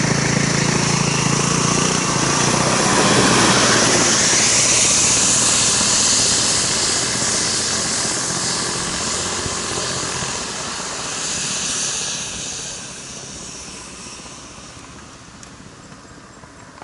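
A heavy goods lorry driving past: engine and tyre noise swell to a peak a few seconds in, then fade away slowly as it moves off down the road.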